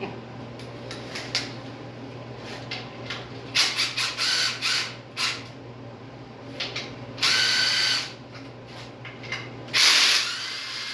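Tool work on a Pontiac 389 V8's accessory brackets. A run of ratchet-like clicks and knocks is followed by two short bursts of a power tool spinning, the second, near the end, the loudest. A steady low hum runs underneath.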